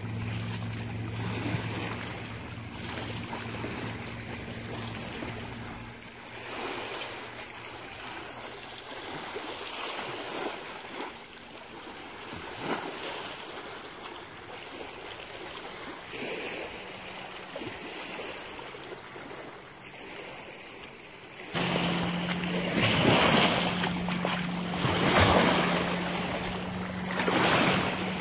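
Lake water lapping and wind on the microphone, with the steady hum of a distant motorboat engine. About twenty seconds in it all turns louder, with water sloshing in the shallows.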